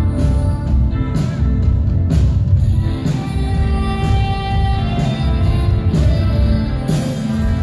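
Live band playing loud indie pop-rock, with a woman singing lead into a microphone over drums, bass-heavy backing and keyboard.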